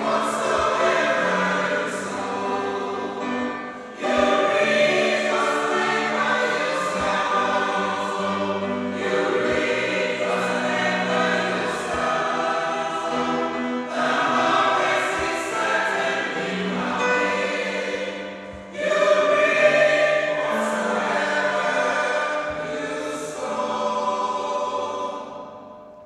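Church choir singing in phrases about five seconds long, fading out near the end.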